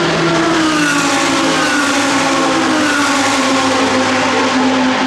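GT race car engines at racing speed: one loud engine note falls in pitch over the first couple of seconds and then holds steady, with other engine notes layered beneath it.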